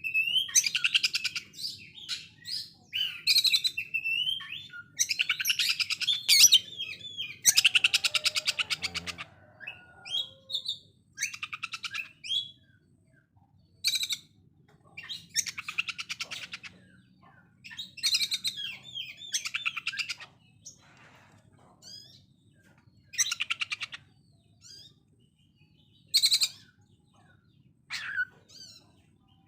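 Oriental magpie-robin (kacer) singing in bursts of harsh, rapid rattling phrases, its notes repeated so fast they sound like a sewing machine, mixed with short whistled and slurred notes, with brief pauses between phrases.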